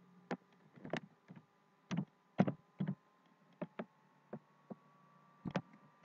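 Computer keyboard keys struck one at a time, about a dozen separate irregular clicks, over a faint steady electrical hum.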